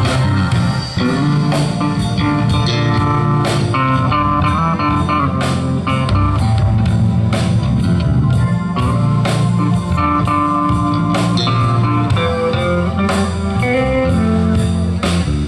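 Live band playing an instrumental passage of a soul ballad, electric guitar to the fore over bass, keyboard and drums.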